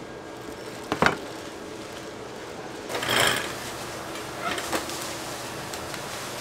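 Work noises in a rice cake shop over a steady machine hum: a sharp knock about a second in, a short rustling burst about three seconds in, and a few light clatters near the end.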